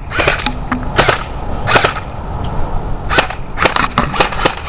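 Airsoft guns firing: a string of sharp pops, some single and some in quick doubles or triples, about eight groups in all.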